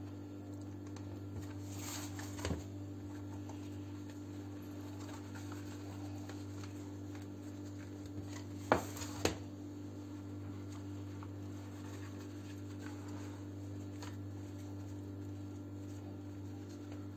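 Faint rustling and light taps of hands smoothing and tucking thin yufka pastry sheets into a metal baking tray, with two sharper taps about nine seconds in, over a steady low hum.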